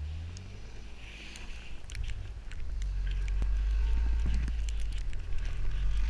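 Mitsubishi Lancer Evolution X's turbocharged 2.0-litre four-cylinder engine revving as the car drifts through snow: the revs drop in the first second, then build again from about two seconds in and hold high. Scattered sharp ticks sound over it.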